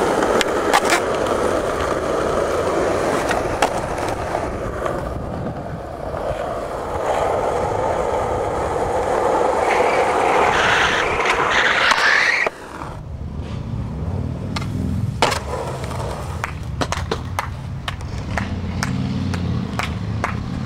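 Skateboard wheels rolling fast over rough asphalt, with sharp clacks of the board, swelling into a rising scraping hiss before cutting off suddenly about twelve seconds in. After the cut, a quieter low rumble with scattered clicks.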